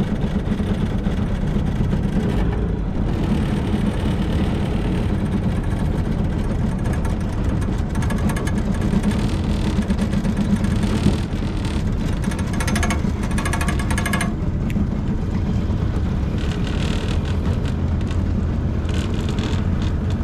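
Boat motor running steadily as the fishing boat travels along the river.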